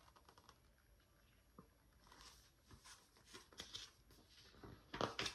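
Quiet room with faint paper rustles and light clicks from a book's pages being handled, with a brief louder rustle near the end as a page is turned.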